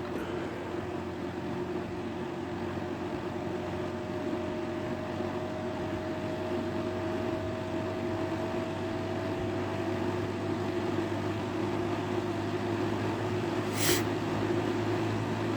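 Hoover box fan motor on high after a cold start, still slowly coming up to speed: a steady hum with a faint whine that creeps up in pitch, growing gradually louder. A single short click near the end.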